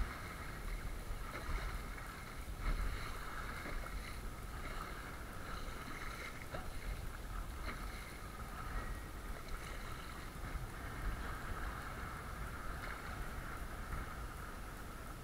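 Choppy sea water splashing and slapping against the hull of a sit-on-top kayak as it is paddled, with short splashes here and there from the paddle blade dipping in.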